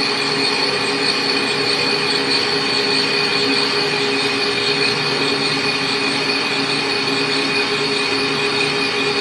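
A machine running steadily, with a continuous high-pitched squeal and whine over a hissing noise.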